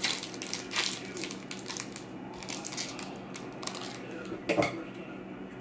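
Foil baseball card pack wrappers crinkling and rustling in the hands as the packs are picked up and handled, in a run of short scrunches with one louder burst about four and a half seconds in.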